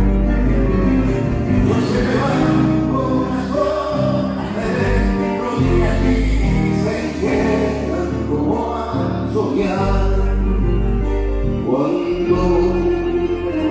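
A live band playing a song with singing over it, amplified through the stage PA: guitars, bass and keyboards.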